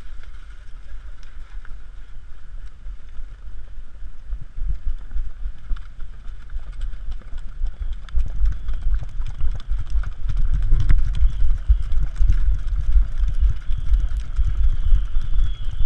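Wind buffeting the microphone of a camera carried on horseback, growing louder about eight seconds in, with Icelandic horses' hooves pattering on sand underneath.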